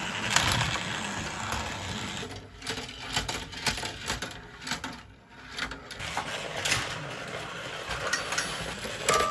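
Battery-powered Plarail toy train running on plastic track: its small motor and gears whirr with a dense stream of clicks and rattles. The noise drops away briefly about five seconds in.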